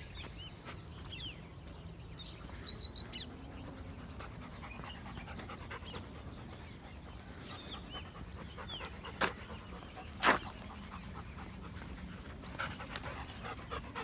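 Many wild birds chirping in short, high calls, over a steady low rumble of movement, with two sharp knocks about nine and ten seconds in.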